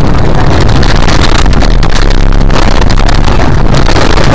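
Loud, heavily distorted vehicle noise: a steady low rumble with constant crackling.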